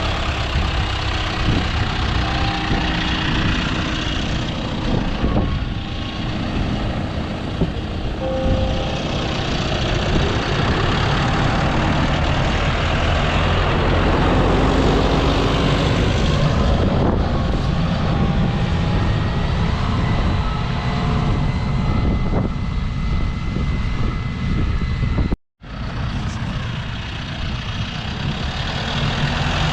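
Heavy vehicle engine running steadily with a loud rumble, typical of snow-clearing machinery at work. The sound cuts out completely for a moment near the end.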